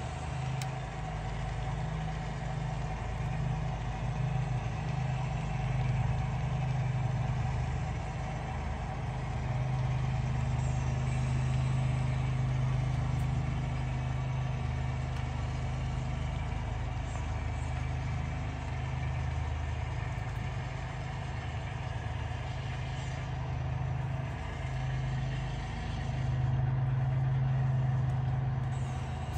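Diesel locomotive engine sound from a model train's sound system, running steadily as the train pulls a string of freight cars, swelling louder now and then.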